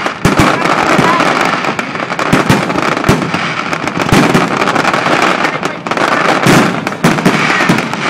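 Daytime fireworks going off in a dense barrage: many sharp bangs at uneven intervals over continuous crackling.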